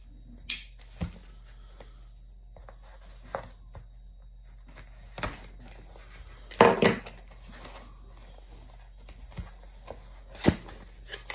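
Box and packaging being handled as tightly packed contents are worked out: scattered knocks and rubs, with a louder cluster of handling noise a little past halfway and a sharp knock near the end.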